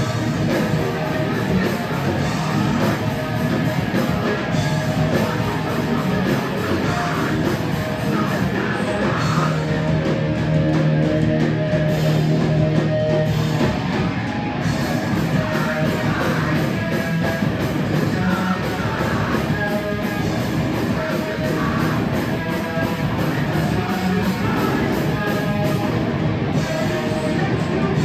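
Hardcore punk band playing live, loud and unbroken: distorted guitars and pounding drums with shouted vocals.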